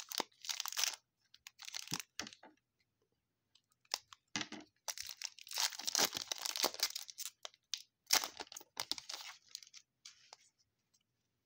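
A trading card pack's wrapper being torn open and crinkled by hand, in several uneven bursts with short quiet gaps between.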